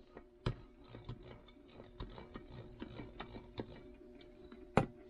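Light, irregular ticks and clicks of a ribbed metal can rolled on its side under a hand across a rubber bench mat, with two sharper knocks, about half a second in and near the end.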